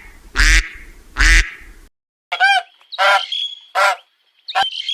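Duck quacking twice, two loud, coarse calls. After a short break, a different waterfowl starts up with a string of clearer, higher, ringing honks.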